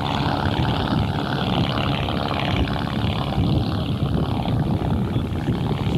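Steady low rumble with the drone of model airplane engines flying at a distance.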